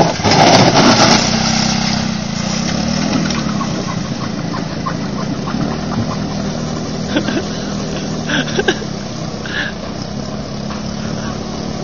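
Small motor scooter engine revving loudly over the first two seconds as it drives into floodwater, then running steadily and easing off as it moves away, its spinning rear wheel churning the water.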